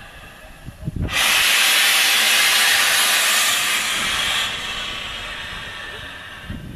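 Steam locomotive blowing off steam: a loud, steady hiss starts suddenly about a second in, eases after about three seconds and carries on more quietly.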